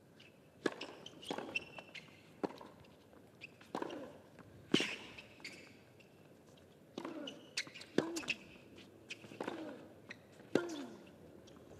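Tennis rally: rackets striking the ball back and forth, a sharp hit about once a second with short pauses between exchanges. Several hits come with a brief falling grunt from the player.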